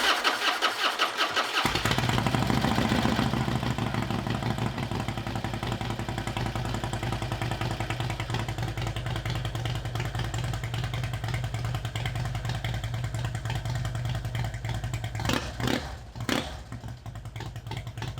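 Harley-Davidson bagger's V-twin engine starting on its first run after a rebuild and settling into a steady run. A few brief louder bursts come near the end.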